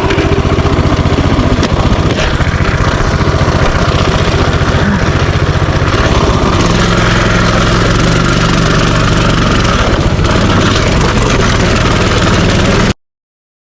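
Minibike's small engine running steadily while riding, with a shift in engine pitch around halfway through; the sound cuts off abruptly near the end.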